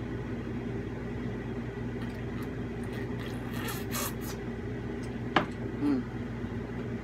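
Quiet eating of rotisserie chicken: a few soft, squishy handling and chewing sounds and a single click, over a steady low hum.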